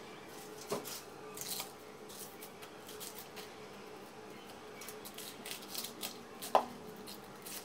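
Onions being peeled by hand with a knife: dry onion skin scraping and rustling, with a few light knocks as the knife and peels hit a plastic bowl, the loudest about six and a half seconds in.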